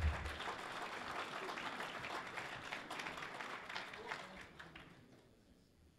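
Audience applauding, with many hands clapping; the applause fades out about five seconds in.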